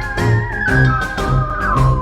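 Instrumental music with a steady bass beat about twice a second under a wavering, gliding high lead melody.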